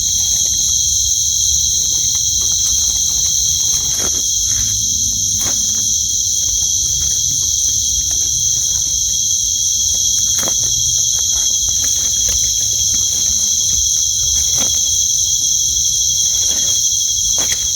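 A dense, steady chorus of crickets and other night insects, several high shrill trills layered together, with a few faint knocks underneath.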